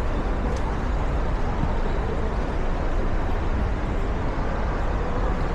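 Steady outdoor background noise: an even rumble and hiss, heaviest in the low end, with no distinct events.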